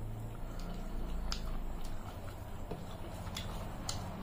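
Eating by hand: chewing and wet mouth sounds while fingers mix rice and curry on metal plates, with a few sharp clicks over a steady low hum.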